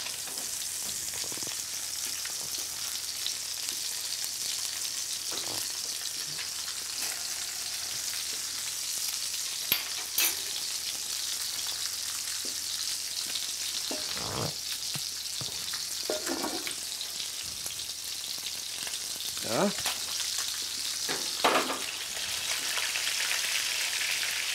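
Turbot fillet with a crust of potato scales frying in butter in a pan, a steady sizzle throughout. A few short knocks sound about ten seconds in, and brief louder sounds come from the pan later on.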